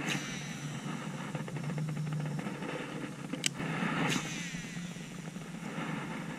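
A baitcasting rod cast over weedy water: a quick swish a little after three seconds in, then a second swish with the reel's spool whirring as line pays out. A steady hiss of open-air ambience runs underneath.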